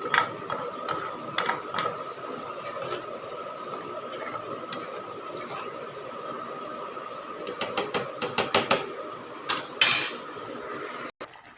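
Metal spoon clinking and scraping against a cooking pan while the gravy is stirred, in scattered clicks with a quicker run of clinks near the end, over a faint steady hum.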